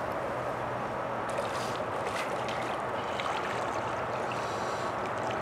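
Shallow, rocky stream riffle rushing steadily, a constant rush of flowing water.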